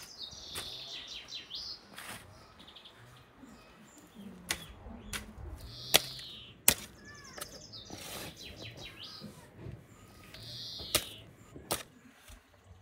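A garden hoe chopping into soft soil, about seven sharp strikes at uneven intervals. Small birds chirp several times between the strikes.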